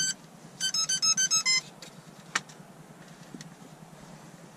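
Electronic beeps from RC radio gear during binding: a beep, then a quick little tune of about six short stepped notes, followed a second later by a single click.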